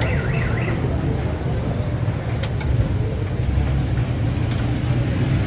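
Busy street ambience: a steady low rumble of road traffic, with a couple of faint clicks.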